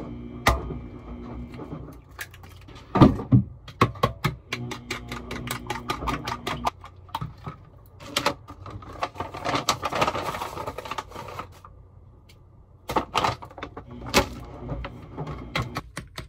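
Kitchen knife chopping on a cutting board: quick, irregular knocks in runs, with short pauses between.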